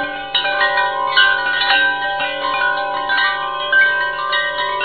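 Background music of chiming, bell-like tones, struck one after another and left ringing so the notes overlap.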